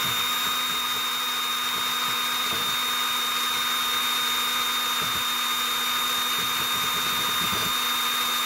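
Power drill running steadily in reverse with a high, even whine, turning the drive screw of a 1994–2004 Ford Mustang power seat track to work the stuck rail along. The pitch holds constant, with no speed change, through the run.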